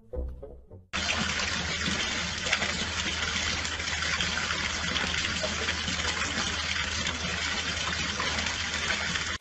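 Steady rush of running water splashing over a hard surface, starting suddenly about a second in.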